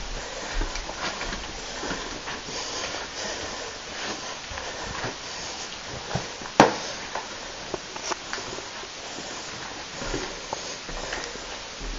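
Footsteps and knocks of someone walking through an empty house, irregular short knocks and clicks over a steady hiss, with one sharp, louder knock about six and a half seconds in.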